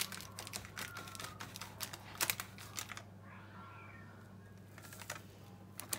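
A drinking glass pressed down through thin sponge cake on a baking tray, its rim making scattered light clicks and taps, with a quieter pause in the middle. A steady low hum runs underneath.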